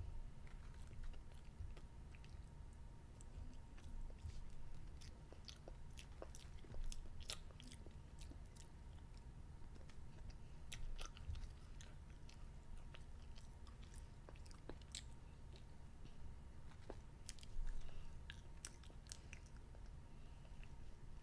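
A child chewing candy, with faint, irregular crunchy clicks from the mouth.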